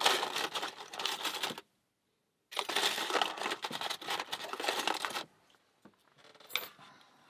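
Small metal lockpicking tools, tension wrenches and picks, jangling and clattering as they are rummaged through, in two long spells of rapid tinny clicks with a short break between, then a few faint clicks.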